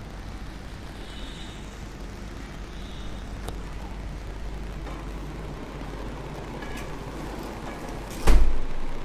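Steady low rumble of outdoor city background noise, with a couple of faint high chirps in the first few seconds and a loud low thump about eight seconds in.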